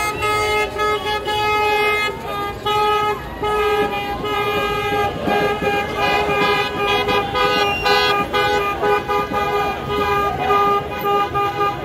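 Car horns honking over and over in celebration, in short and longer blasts, over a crowd of fans shouting and cheering.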